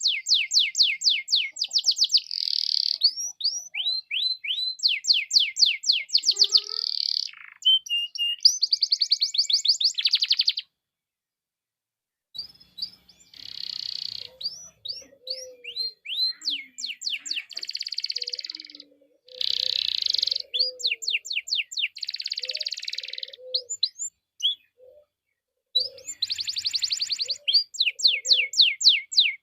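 Domestic canary singing long, fast trills and rolls in repeated phrases, broken by a short silence about eleven seconds in and another near the end. Fainter low chirps come in under the song in the second half.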